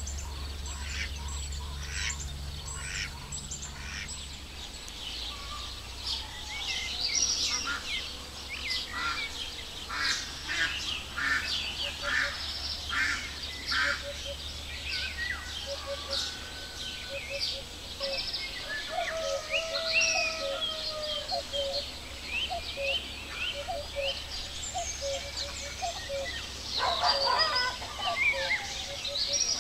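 Wild birds singing and chirping in a spring chorus: many short chirps and whistled phrases, with some lower short calls in the middle, over a low steady rumble.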